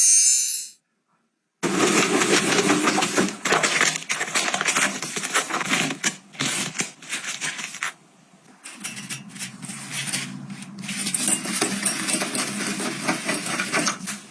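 Dense clicking, tapping and rustling of household items and packaging being handled, in short edited clips with a brief cut to silence about a second in and a quieter dip about two-thirds through.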